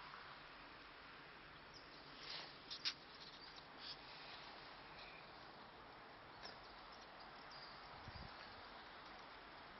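Near silence: faint outdoor hiss, with a few short, high chirps or clicks clustered about two to four seconds in.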